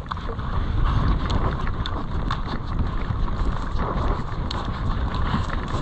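A person running across grass: heavy wind rumble on the microphone, with footfalls and many small irregular clicks.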